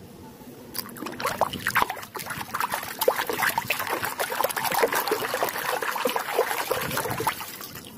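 Water splashing and sloshing in a tub as a hand scrubs a muddy plastic toy under the surface, starting about a second in and tapering off near the end.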